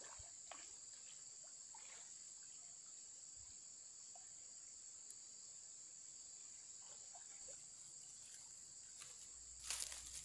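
Steady, high-pitched chorus of insects. A short burst of noise near the end.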